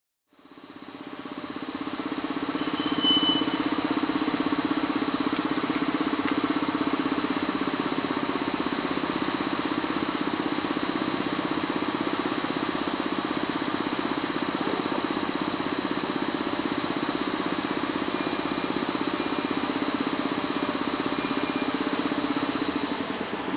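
EP07 electric locomotive standing with its cooling blowers and motor-generator running: a steady high whine over a lower hum.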